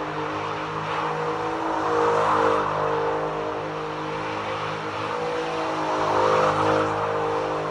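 Car engine held at high revs while drifting, its pitch staying fairly level, with a steady hiss over it. It swells louder about two seconds in and again near six and a half seconds.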